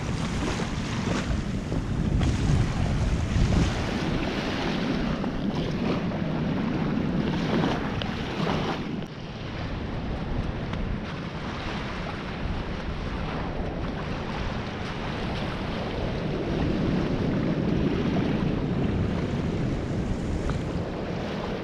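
Wind noise on the microphone over a steady rush of distant surf breaking on the offshore reef.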